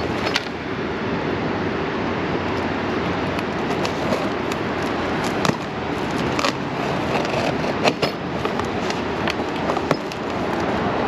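Steady rushing background noise with a handful of sharp clicks and knocks, about 5 to 8 seconds in, from small parts and tools being handled in a cardboard box.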